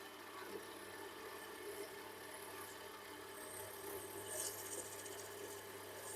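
Small metal lathe running steadily while a high-speed steel tool cuts aluminium, with a brief hissing scrape about two-thirds of the way in. The tool seems dull and may need grinding.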